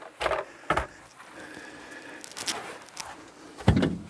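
Items being handled and set down: a couple of light knocks early, some shuffling, and a louder thump near the end.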